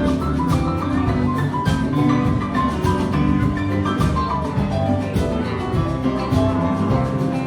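Live band playing an instrumental passage with bass, drums and a bright, bell-like melodic line.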